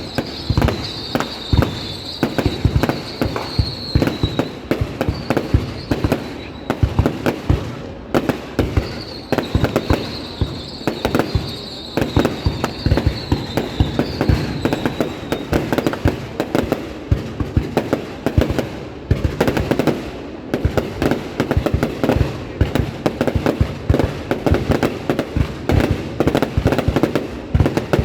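Fireworks display bursting in rapid, dense volleys of bangs and crackles. A high, slightly falling whistle sounds over the bangs twice in the first half.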